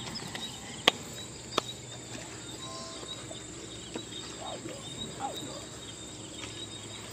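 Steady high-pitched insect chirring, with two sharp clicks about a second in, half a second apart.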